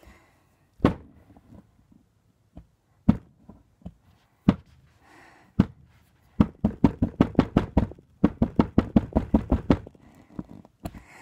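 Wooden pick chipping at a hard plaster excavation block: a few separate knocks, then a fast run of knocks, about seven a second, lasting some three seconds.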